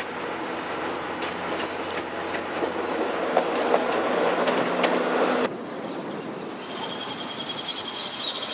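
EMEPA Alerce diesel railcar passing close by, its running noise and the clicks of its wheels over the rail joints growing louder. The sound cuts off abruptly about five and a half seconds in, giving way to a quieter background with a few high chirps.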